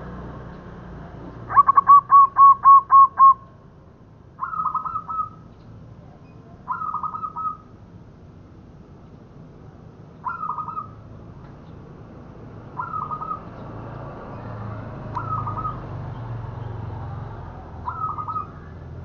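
Zebra dove (perkutut) singing. About two seconds in comes a quick run of seven rolling coos, the loudest part, and then short trilled coos every two to three seconds.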